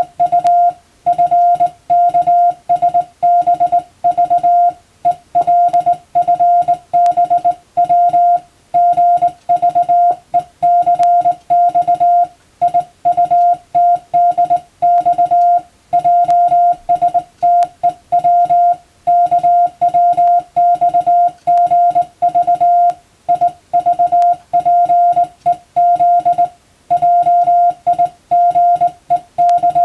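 Morse code (CW) sent on a telegraph key: a single steady beep tone keyed on and off in dots and dashes, grouped into letters and words with short pauses between them, as Roman-letter telegram practice for receiving.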